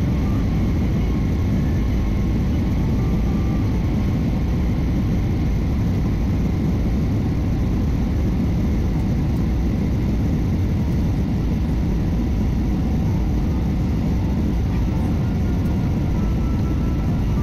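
Jet airliner cabin noise on approach: the steady rush of the engines and airflow heard from inside the passenger cabin, heaviest in the low end, with a few faint steady tones above it.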